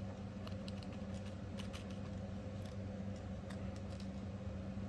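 Faint, scattered light clicks of small metal parts being handled: springs being set into the bores of a copper mechanical fidget slider, over a steady low hum.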